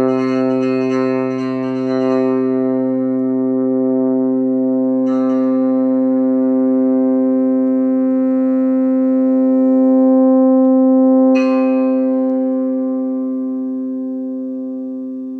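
An E-Bow sustaining a string on a homemade apprehension engine, picked up and amplified as one steady, droning tone with many overtones. A brief buzzy rattle breaks in about five seconds in and again at about eleven seconds. The tone then fades away slowly once the E-Bow is lifted off.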